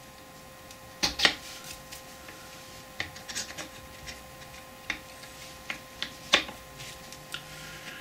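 Steel change gears and shafts of a Boxford lathe's lead screw gearbox clinking and knocking as they are handled and slid into place in the cast-iron casing. A string of separate sharp metallic clicks, two close together about a second in and the loudest just past six seconds.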